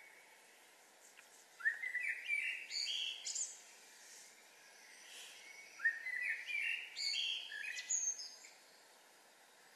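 A songbird singing two phrases of about two seconds each, the first about one and a half seconds in and the second near the middle, each a quick run of bright notes climbing in pitch, over faint steady low background noise; a softer bird call sounds at the start and end.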